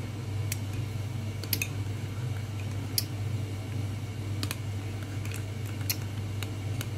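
A small metal spoon clicking against a ceramic mug of frothed milk, scattered sharp clicks about once a second, over a steady low hum.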